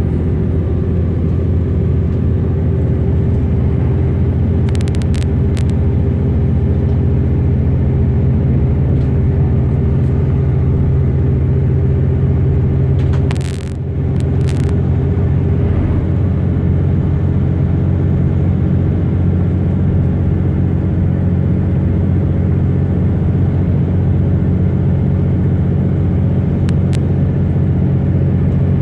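Class 323 electric multiple unit heard from inside while running at a steady speed: a steady rumble with a low, even hum. The rumble dips briefly about halfway through, with a few short clicks around the dip and earlier on.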